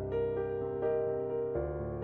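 Background music: a soft electric-piano track with slow, sustained chords.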